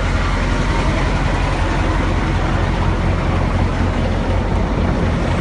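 Mack E9 V8 diesel of a Renault Magnum 560 truck idling steadily through a straight, open exhaust pipe.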